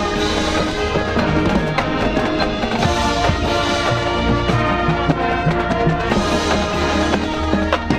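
A high school marching band playing a field show: full brass sections holding loud sustained chords over drums and percussion.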